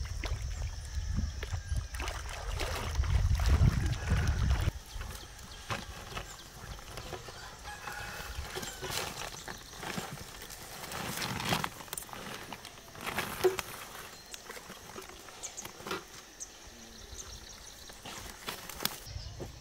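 A rooster crowing, with rustling and crinkling of a plastic bag. A low rumble fills the first few seconds.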